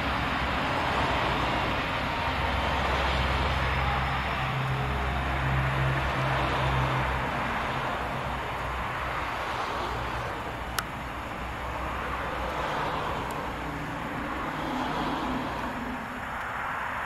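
Jet engines of a four-engine jet airliner running as it rolls along the runway: a steady rushing noise with a low hum that fades out around the middle, and a single sharp click about eleven seconds in.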